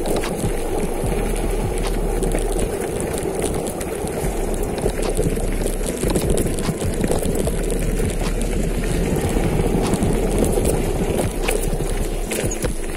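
Mountain bike rolling down a rough dirt trail: steady wind rumble on the camera microphone, with frequent rattles and knocks from the bike over the bumps.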